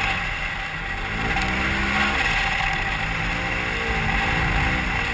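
Polaris RZR XP 1000 side-by-side's twin-cylinder engine heard from inside the open cab, revving up and down several times as it is driven hard over sand dunes, over a steady rushing of wind and drivetrain noise.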